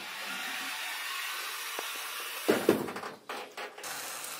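Footsteps on an aluminium car trailer's deck: two knocks about two and a half seconds in and a few lighter taps after, over a steady hiss.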